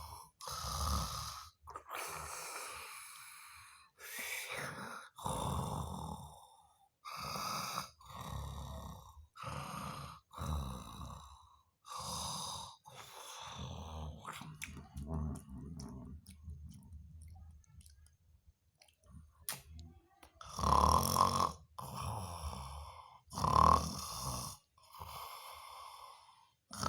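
A sleeping person snoring: a run of snores about a second apart, fainter for a few seconds past the middle, then louder again.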